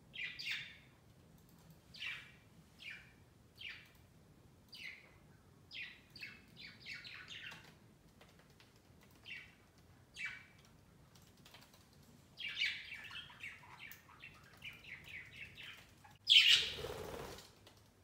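Pet budgerigars chirping: short high chirps a second or so apart, then a quicker run of chatter. Near the end a louder, noisier burst about a second long.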